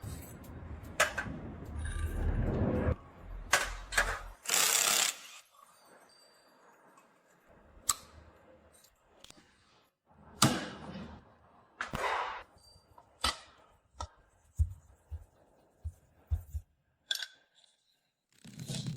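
Hand tools and metal motorcycle parts being handled on a workbench: scattered knocks and clicks, with a few short hissing bursts, the loudest about five seconds in.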